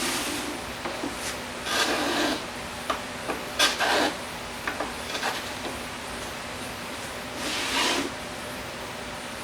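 Wood rubbing and scraping against wood in a few short strokes of about half a second each, with some light knocks in between.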